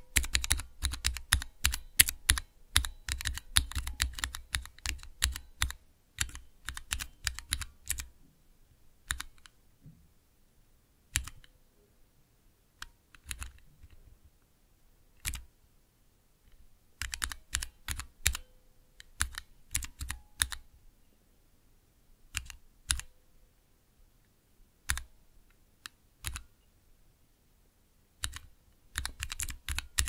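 Keys of a Cherry MX mechanical keyboard clacking under typing: a fast, continuous run of keystrokes for the first eight seconds, then slower, scattered single keystrokes separated by pauses, broken by short quick runs of typing.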